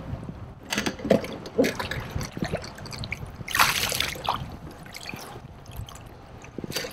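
Water splashing and dripping at the side of a kayak as a hooked redfish is landed by hand, with the loudest splash about three and a half seconds in.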